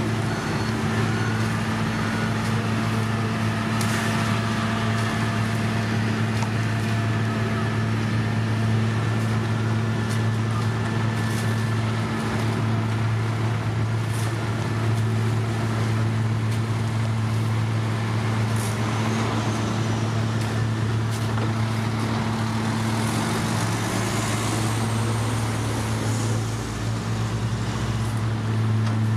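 Heavy diesel engines of a road paver and the dump truck feeding it gravel, running steadily with a deep hum. Near the end an engine's pitch briefly rises.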